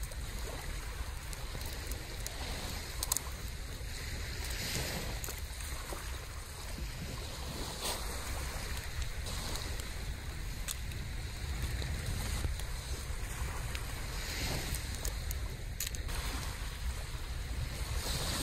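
Wind rumbling on the microphone over waves washing on a sandy shore, the wash swelling a few times, with scattered small clicks and cracks.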